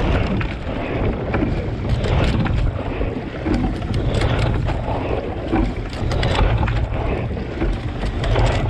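Wind buffeting a GoPro mounted just above the water on a racing single scull, over water rushing and splashing along the hull as the boat is rowed, with scattered short splashes.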